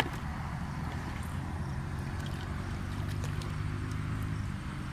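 Hands sloshing and groping in shallow muddy water, with a few small splashes, over a steady low engine drone.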